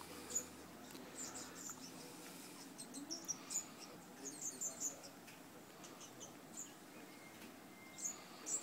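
Faint, high-pitched bird chirps in short quick clusters, coming and going a few times, over quiet outdoor background.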